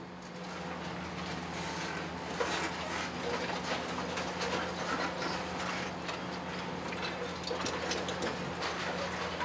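Demolition excavator's engine running with a steady hum while rubble and timber clatter and crack under its arm. The crackling thickens about two seconds in.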